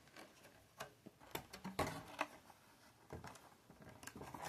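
Scattered light clicks and taps of a plastic protector case being handled and opened, about half a dozen short ticks at irregular spacing.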